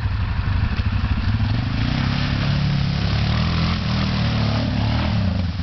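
Quad bike (ATV) engine revved hard as its wheels spin in wet sand and mud by the water's edge. The revs climb about two seconds in, hold high, then drop back near the end, with the hiss and spatter of mud being thrown.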